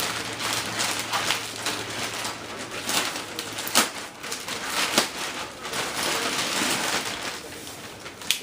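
Cardboard shipping box being opened and handled: tearing, scraping and rustling of cardboard and packing, with a few sharp knocks.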